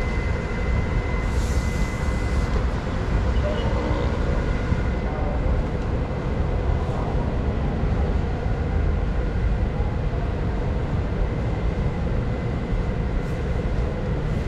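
Steady low rumble of a large warehouse store's background noise, with a thin steady high tone and a short hiss about a second and a half in.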